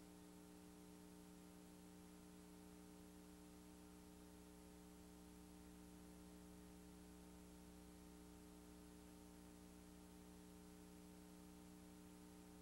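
Near silence: a faint steady electrical hum with light hiss, and no other sound.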